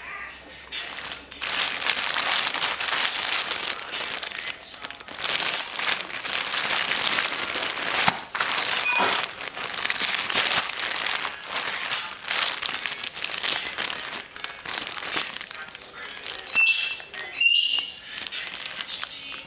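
Packaging crinkling and rustling as it is handled and opened, a dense run of crackles with a couple of short squeaks near the end.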